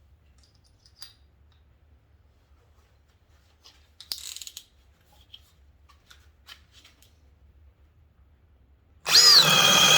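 A few faint handling clicks and a short scrape, then about nine seconds in the Metabo DV 36DA 36-volt hammer drill starts up at full speed with a loud, high whine, driving a Milwaukee bit into wood.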